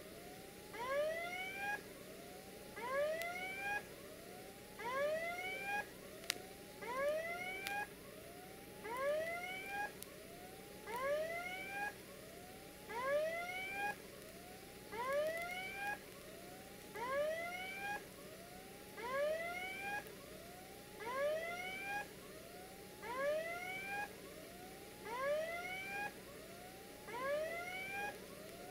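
Level crossing warning sounder going off: an electronic tone that sounds as a pair of rising whoops about every two seconds, warning of the approaching train.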